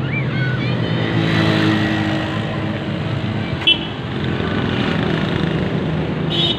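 Steady street traffic: engines of passing cars and motorcycles running, with a short sharp sound about three and a half seconds in and another near the end.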